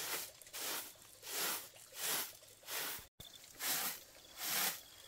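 Broom sweeping the ground in a steady rhythm of swishing strokes, about three every two seconds, with a brief break about three seconds in.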